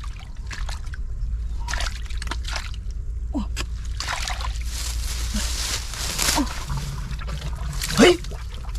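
Muddy water sloshing and splashing in short strokes, denser for a couple of seconds in the middle, as hands grope through a flooded hole for fish.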